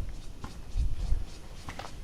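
Footsteps and rustling of a player moving with gear, with a few dull low thumps and light clicks.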